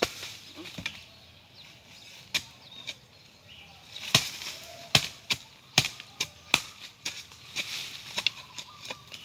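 A series of sharp, short knocks at irregular intervals, about a dozen, coming thickest and loudest a little past the middle.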